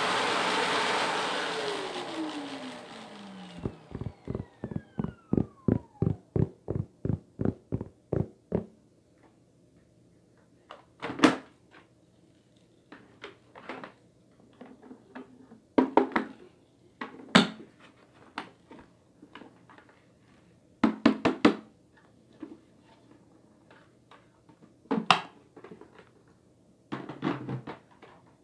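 Shark Apex upright vacuum running, then switched off about two seconds in, its motor whine falling in pitch as it spins down, followed by about five seconds of evenly spaced ticks, roughly three a second. After that, scattered plastic clunks and clicks as the vacuum's dust cup is detached, handled and emptied.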